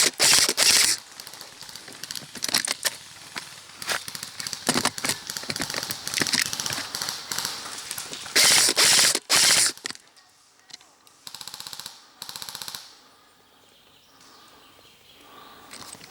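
Airsoft guns firing in full-auto bursts: a loud burst right at the start and another about eight seconds in, with scattered single clicks between them. Quieter rapid bursts follow about eleven and twelve seconds in.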